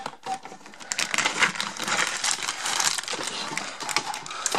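Plastic packaging crinkling and crackling as it is pulled out of a drawer and handled, growing busier about a second in.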